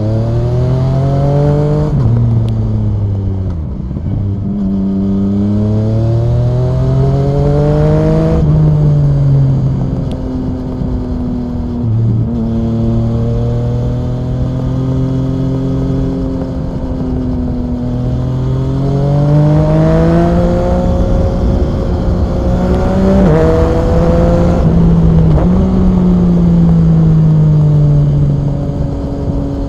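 Yamaha MT-09 SP's three-cylinder engine through an Akrapovic Racing exhaust, accelerating hard with the pitch climbing and then dropping sharply at each gear change, several times over. Between pulls it holds steady or falls off as the throttle is eased, and the pitch sinks near the end as the bike slows.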